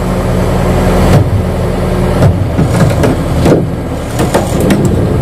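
Excavator's diesel engine running steadily, with several sharp knocks and clanks over it.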